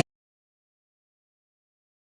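Digital silence: the music cuts off abruptly at the very start and nothing follows.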